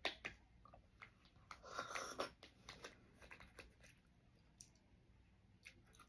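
Faint eating sounds: a spoon clicking and scraping in a small plastic fruit cup, with chewing. The loudest stretch comes about two seconds in.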